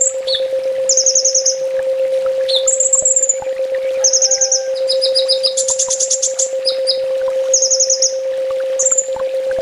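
Kolibri ninja (a sunbird) singing: short, fast, high trills and chirps repeated about once a second, with a denser run of notes about six seconds in. A steady low hum runs underneath.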